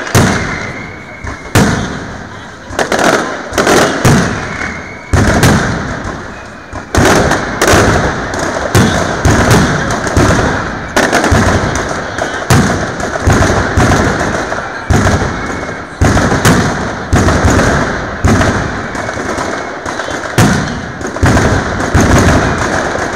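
Mascletà: strings of loud ground firecrackers (masclets) banging in quick succession, one or two sharp bangs a second, each ringing out briefly, with a denser run of bangs about five seconds in.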